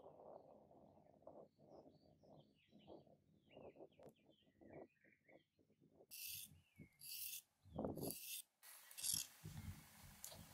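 Kitchen knife blade scraping the skin off a fresh carrot in a few short strokes from about six seconds in, after soft rustling as vegetables are handled on a wooden board. Small birds chirp faintly in the background.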